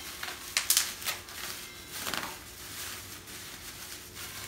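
Plastic bubble wrap being crumpled and packing tape being pulled off it: crinkling with a few sharp crackles, the loudest just under a second in and more around two seconds.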